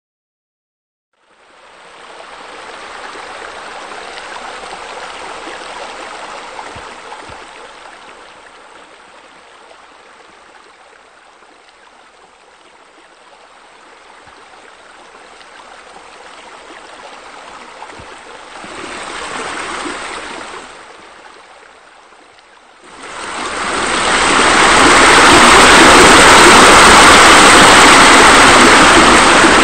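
Water splashing and running steadily, the sound of pool bubblers and spillways. It fades in after a moment of silence, dips in the middle, and becomes much louder about 23 seconds in.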